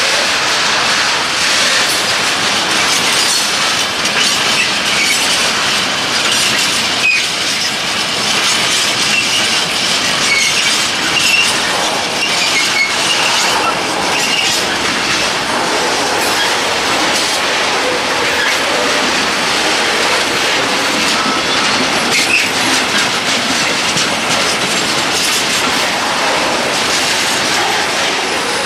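Freight train's goods wagons, sliding-wall wagons and empty stanchion flat wagons, rolling past steadily, their wheels clattering over the rail joints, with brief high wheel squeals now and then.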